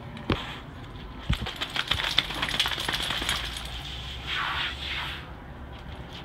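Water spraying and spattering onto a wet dog's coat and a soapy deck: a dense crackle of small clicks over a hiss, stopping about five seconds in.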